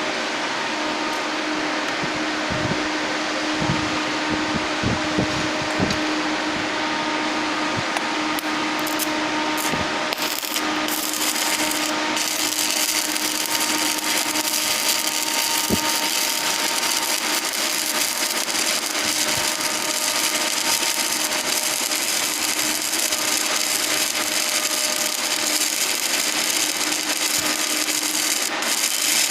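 Electric arc welding on a pipe: a continuous dense crackle and sizzle of the arc over a steady hum, turning brighter and hissier about ten seconds in.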